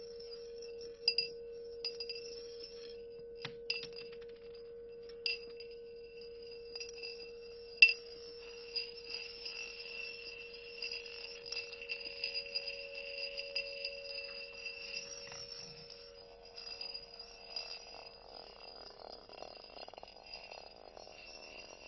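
Solo percussion with electronics: a steady low ringing tone is held under fainter high ringing, with sharp clinks from handled bowls, the loudest about eight seconds in. Near the end the low tone fades out and a soft rough noise takes over.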